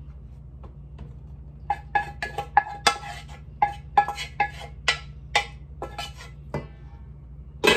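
Black nonstick pan knocked and scraped against the rim of a stainless steel mixing bowl as it is tipped and shaken empty: a run of about fifteen ringing metallic clanks, starting about two seconds in and ending shortly before the end, over a steady low hum.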